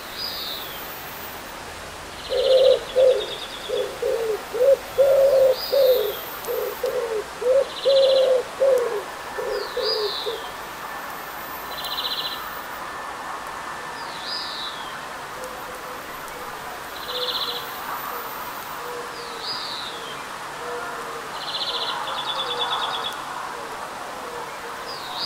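Steady rain hiss with birds calling over it. A high call repeats about every two seconds, a downward-slurred whistle alternating with a short buzzy note. A run of loud, low cooing calls starts about two seconds in and stops around ten seconds in.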